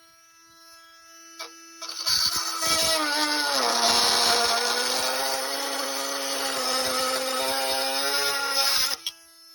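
A power cutting tool's steady motor whine, then about two seconds in a loud, harsh cut through the aluminium flange of a replacement radiator. The whine drops in pitch as the blade loads up, and near the end the tool comes free and the higher whine returns.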